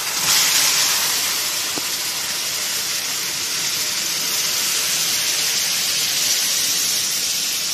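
Sugar syrup being poured into semolina roasting in hot ghee in a frying pan, the hot fat hissing and sizzling steadily as the liquid hits it.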